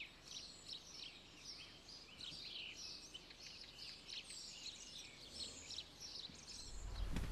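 Several birds singing, a busy mix of short, high chirps and trills overlapping one another. A low rumble comes up near the end.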